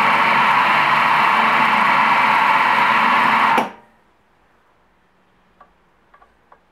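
Nagema bowl cutter running steadily as it chops sausage meat for Gothaer sausage, then stopping abruptly about three and a half seconds in. A few faint clicks follow near the end.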